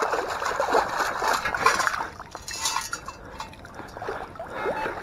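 Water sloshing and draining through a sieve scoop as it is shaken, with gravel and stones clinking in it, loudest in the first two seconds and then more scattered.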